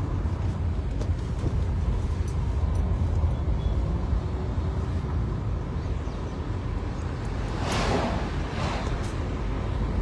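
Road noise inside a moving car: a steady low rumble from engine and tyres. About eight seconds in, an oncoming lorry and the traffic behind it pass with a rising and falling whoosh.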